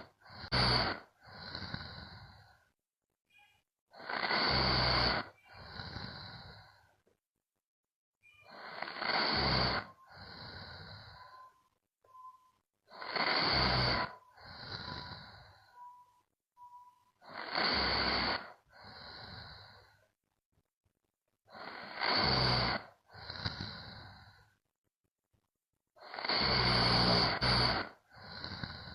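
A young woman snoring in her sleep: on each breath a harsh rasping snore is followed by a shorter, softer breath, repeating about every four and a half seconds.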